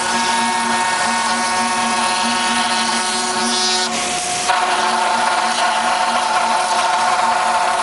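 A 5-axis CNC router's spindle running under load as its cutter mills a laminated wood block: a steady whine of several tones over the hiss of cutting. About four and a half seconds in, the tones shift and the sound gets a little louder.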